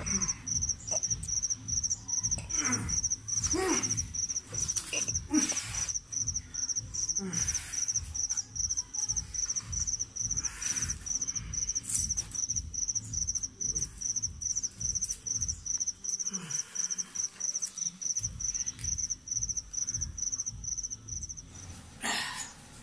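Cricket chirping: a steady, high-pitched run of short, evenly spaced pulses that stops shortly before the end, over a low, rhythmic pulsing.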